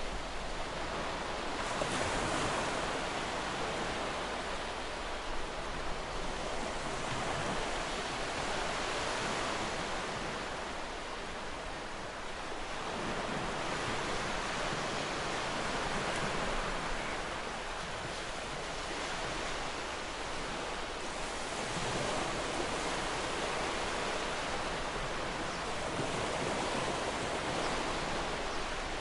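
Small waves breaking gently on a sandy shore, a steady wash of surf that swells and eases every several seconds.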